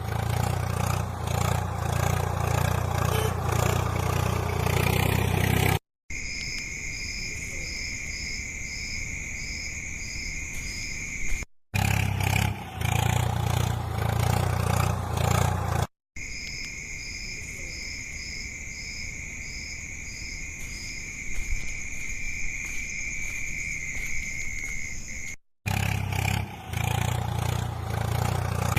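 Heavy diesel engine of a tractor or backhoe loader running under load, in three stretches separated by sudden cuts. Between them come two quieter stretches of a steady high tone with a faster pulsing tone above it.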